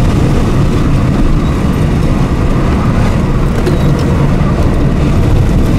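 Car driving at speed, heard from inside the cabin: steady engine and road noise.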